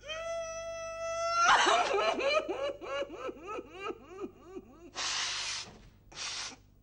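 A woman's exaggerated comic crying: a long high wail that breaks into a quick run of sobs, about four a second, sinking in pitch, then two loud sniffs near the end.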